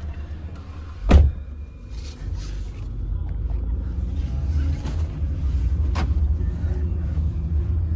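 Steady low rumble of a Toyota taxi's cabin as the car sets off, with a loud thump about a second in and a sharp click near six seconds.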